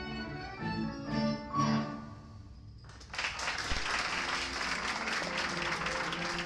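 A guitar ensemble plays the closing notes of a tune, which die away about two seconds in. About a second later the audience breaks into applause that goes on to the end.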